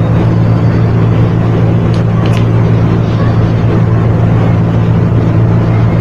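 Steady, loud machine hum, running unchanged throughout, with a couple of faint short clicks a little after two seconds in.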